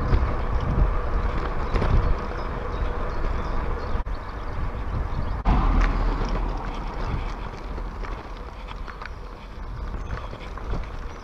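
Bicycle ride heard from a camera on the moving bike: wind rumbling over the microphone with tyre noise on the tarmac and frequent small clicks and rattles from the bike, and a heavier bump about halfway through.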